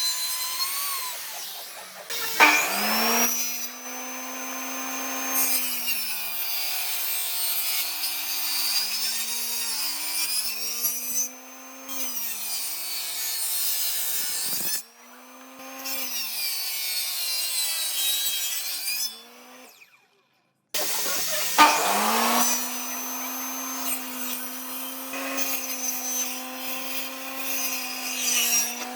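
Electric power tool working wood. Its motor spins up about two seconds in, and its pitch sags and recovers again and again as it bites into the wood. It stops shortly after the middle, then starts up again and runs fairly steadily.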